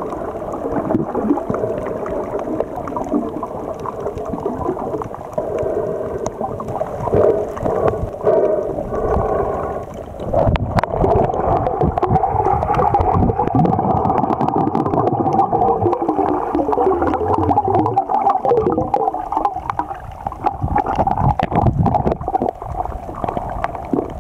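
Muffled underwater sound from a submerged camera: water gurgling and moving around it, with many scattered short clicks that grow more frequent about halfway through.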